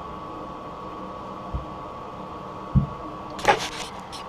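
Hand tools working a toilet tank bolt: two dull knocks, then a quick run of sharp clicks and scrapes near the end, over a steady low hum.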